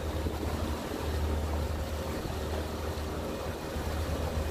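Motorboat under way on open water: a steady low drone from its motor under a constant hiss.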